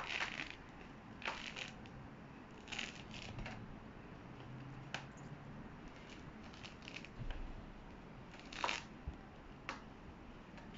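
Thick pomelo rind being pried and torn away from the fruit by hand: short scratchy tearing noises at irregular intervals, with a couple of sharp clicks.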